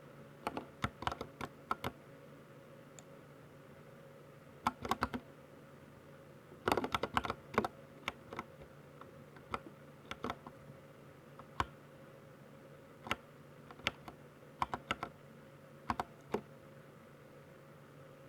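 Keystrokes on a Ducky 60% mechanical keyboard with silver switches: short flurries of presses, densest about seven seconds in, then single keys pressed at scattered intervals of a second or so.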